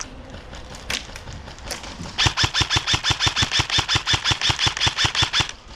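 Airsoft M4 rifle firing a rapid string of shots, about eight or nine a second for roughly three seconds, then stopping abruptly. A couple of single sharp shots come before the string.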